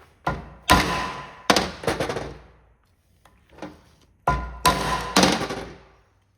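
Plastic remote-control case being forced open without screws: sharp cracks and knocks in two bursts of three or four strikes each, the second burst starting a bit past the midpoint.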